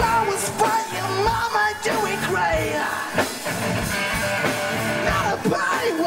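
Live rock band playing: electric guitar, bass and drums with regular drum hits, and a male singer's voice bending over the top.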